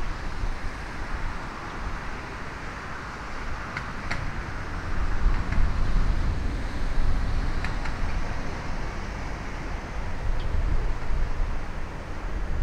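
Distant jet roar of a Boeing 767 freighter on final approach, with gusty crosswind rumbling on the microphone that swells and fades.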